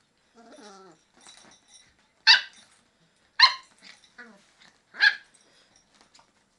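Beagles play-fighting: a short whine falling in pitch about half a second in, then three sharp barks over about three seconds, the loudest sounds.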